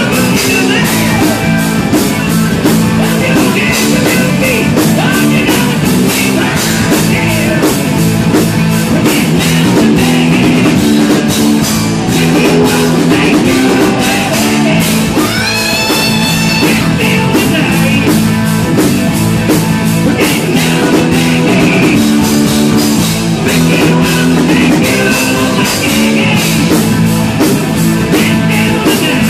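Live rock band playing loud: electric guitars, keyboards and a drum kit, with a singer.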